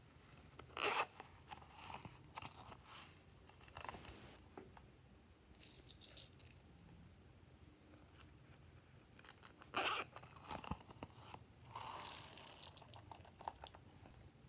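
Small plastic dinosaur-shaped containers being handled and opened, with a sharp click about a second in and again about ten seconds in. Each click is followed by scraping and rustling as sprinkles and glitter are tipped out onto slime.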